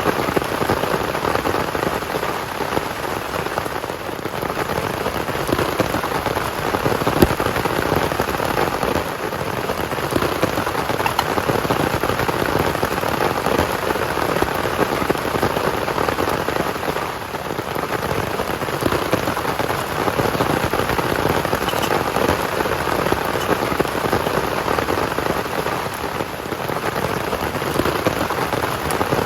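Heavy rain falling steadily, with one brief knock about seven seconds in.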